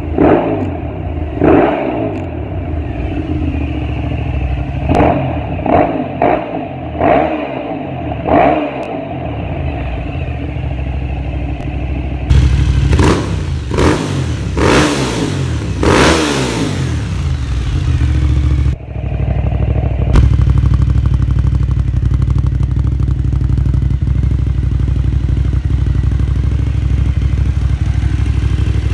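2005 Cagiva Raptor 1000's V-twin engine, through twin Remus Grand Prix exhausts, being blipped again and again from idle, with a run of louder, harder revs around the middle. After a brief dip about two-thirds in, it settles to a steady idle close to the mufflers.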